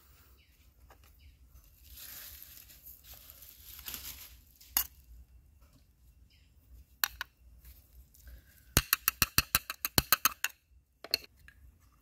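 A metal spoon and small bowls clinking and scraping while seasonings are handled: soft scraping early on, a few single taps, then a quick run of about a dozen light taps, some eight a second.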